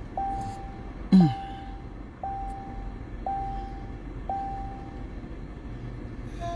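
A car's warning chime: one held tone, repeating about once a second five times and stopping about five seconds in. A short falling vocal sound from the woman about a second in is the loudest moment.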